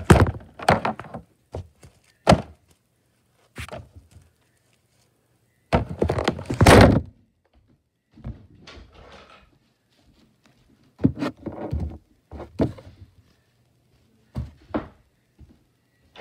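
Irregular thunks, knocks and rubbing of objects being handled close to the microphone. The longest and loudest bout comes about six to seven seconds in.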